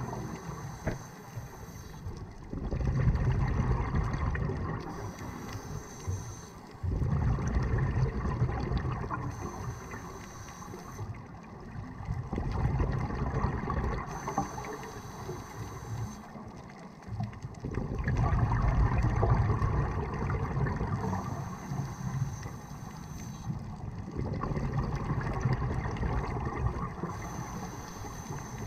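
Scuba diver breathing through a regulator, heard underwater: a short hissing inhale, then a longer burbling rush of exhaled bubbles. The cycle repeats slowly, about every five seconds.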